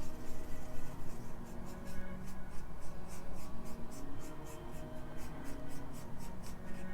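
Paintbrush dabbing acrylic paint onto a canvas panel: a run of short brush strokes, about four a second, over soft background music.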